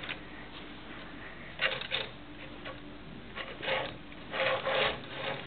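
Plastic Lego pieces being handled, in three short bursts of rustling and clicking.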